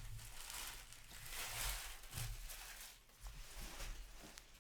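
Trading cards being handled, a soft rustling and sliding that swells and fades, with a few light clicks.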